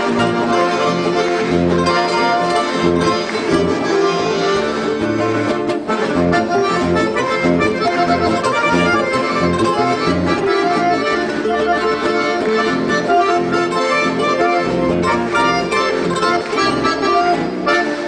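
Accordion and three acoustic guitars playing an instrumental piece of traditional music together, with the accordion carrying the melody over strummed guitar chords.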